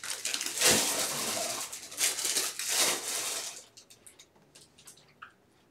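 Trading cards and pack wrappers being handled on a table: a rustling, crinkling noise with many small clicks for about three and a half seconds, then only a few faint taps.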